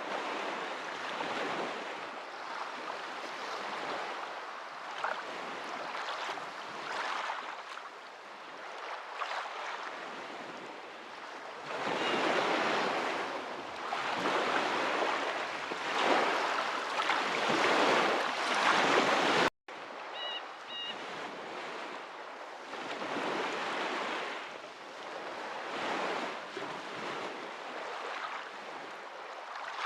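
Water rushing and washing in slow swells, like waves breaking on a shore, loudest about two-thirds of the way through. It cuts out for an instant at that point, then resumes with a faint short high chirp.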